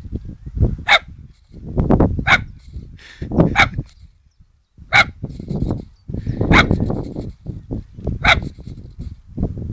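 A standard poodle barking repeatedly: about six sharp barks, roughly one every second and a half, with a short pause near the middle. A low rumbling noise runs under and between the barks.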